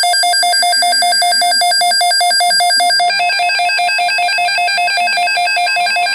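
Emergency alert broadcast's electronic alert tone: a loud, rapidly pulsing beep, about ten pulses a second, which shifts to a higher pitch about three seconds in.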